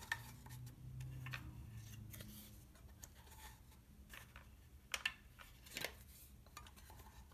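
Faint rustling and a few small clicks of cardboard-mounted 35 mm slides being pushed into the slots of a plastic carousel slide tray. The sharpest clicks come about five and six seconds in.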